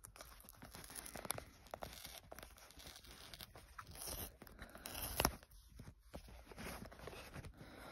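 Paper pull-tab seal strips being torn off a cardboard phone box while the box is handled: faint tearing, rustling and scraping, with a sharper click about five seconds in.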